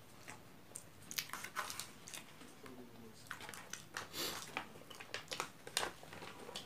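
Close-miked eating sounds: chewing and soft, scattered clicks of rice being eaten and mixed by hand. An aluminium foil food tray crinkles as it is picked up and tipped over the plate about four seconds in.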